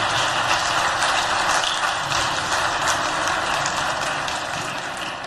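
Audience applauding in a dense, steady patter that slowly fades toward the end.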